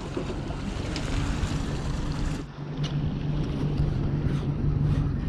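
Wind buffeting the microphone over sea and water noise, with a steady low hum coming in about halfway through.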